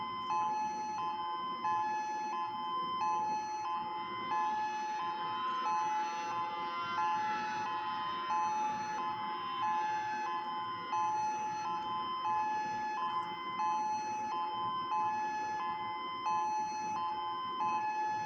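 Federal Signal EOWS 612 electronic outdoor warning siren sounding its Hi-Lo alert: two steady tones alternate high and low in an even, repeating pattern during a tornado siren test. A fainter tone glides up and back down in the middle.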